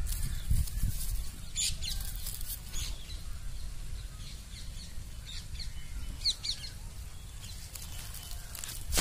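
Low rumble of wind on the microphone, with a few short, high bird chirps that are clearest about six seconds in.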